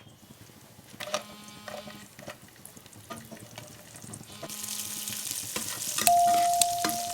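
Food frying in a pan and being stirred: a few utensil clicks, then a sizzle that grows louder about halfway through. A loud steady note comes in near the end over the sizzle.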